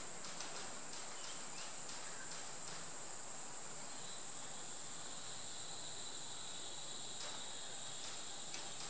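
A steady high-pitched drone runs throughout, with a fainter high tone joining about four seconds in. Faint scattered light clicks come from the oil pump and dial indicator being handled.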